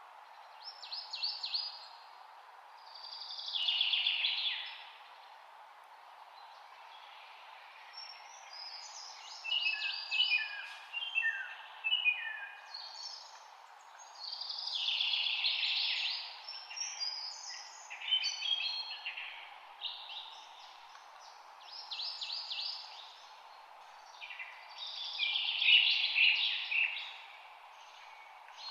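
Birds singing: repeated phrases of quick high chirps and trills every few seconds, over a faint steady background hiss.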